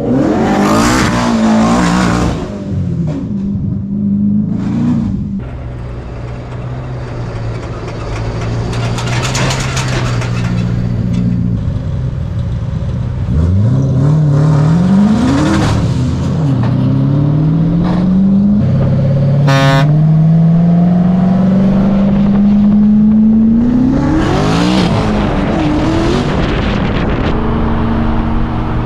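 Ford F100 pickup's engine revving hard, its pitch climbing again and again as it pulls up through the gears, with several bursts of broad hissing noise.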